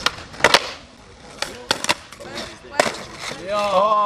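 Skateboard on asphalt: a sharp pop of the tail about half a second in, then several clacks of the board hitting the pavement over rolling wheel noise. A short shout near the end.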